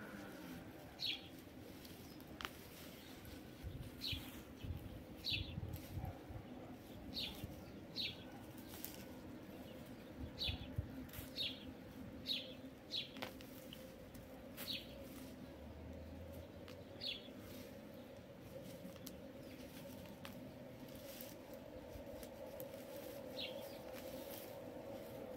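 Small birds chirping: short, high notes every second or two, with pauses between runs. Under them, a faint steady hum and a few sharp clicks and rustles.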